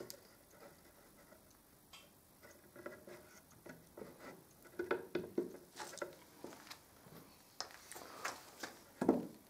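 Hands rubbing a freshly glued wood veneer strip down onto the curved edge of a tabletop: faint, irregular scuffing with light ticks and taps. A few louder knocks come near the end as tools are handled on the bench.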